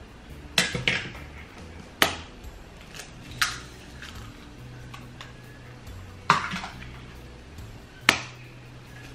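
Eggs being cracked on the rim of a metal mixing bowl: sharp single taps of shell on metal, about six in all, each with a short ring, spread unevenly with the loudest around two seconds in and near the end.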